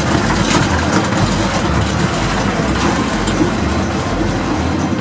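Old J&E Hall escalator running: a steady mechanical rumble with occasional light clicks.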